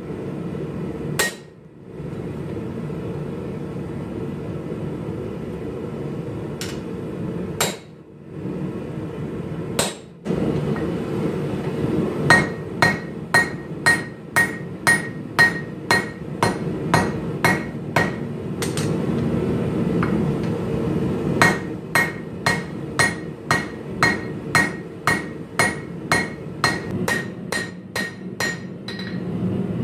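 Hand hammer striking hot Damascus steel on an anvil to forge out the blade's tang. There are a few scattered blows at first, then from about twelve seconds in a steady run of about two ringing strikes a second, with a short break near twenty seconds. A steady low noise from the gas forge's burner runs underneath.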